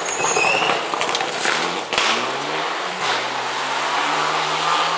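Rally car engine accelerating on a gravel stage: its pitch rises and then holds steady at high revs, with a few sharp cracks in the first two seconds.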